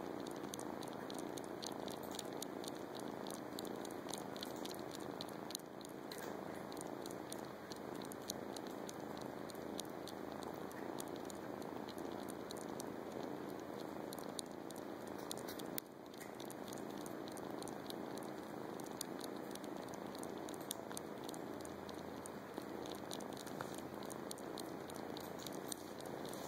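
Calico Manx kitten purring steadily while sucking on a blanket, with many small quick clicks from its sucking mouth.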